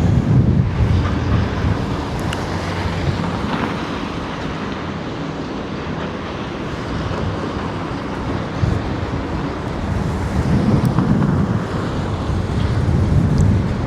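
Strong wind buffeting the microphone in gusts, over the steady rumble of demolition excavators working on a concrete building, with a few faint knocks.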